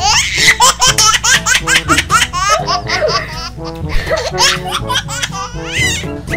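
Rapid, high-pitched laughter over background music.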